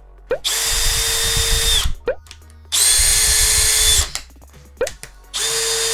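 Aimsak BL14T503 14.4 V cordless hammer drill-driver running free with no load, the trigger pulled three times for about a second and a half each, with steady whirring. The middle run is the loudest.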